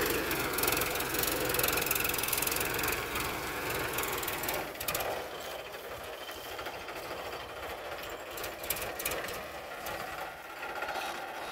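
Powertrac 439 Plus tractor's diesel engine running as the tractor works through a field, loud for the first few seconds and then quieter. Over it a creaking, clicking rattle from the tractor, which is never serviced.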